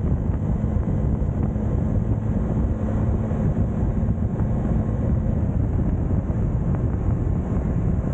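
Wind rushing over the microphone of a moving motorcycle, with the motorcycle's engine running underneath. A faint steady tone in the engine sound stops about five and a half seconds in.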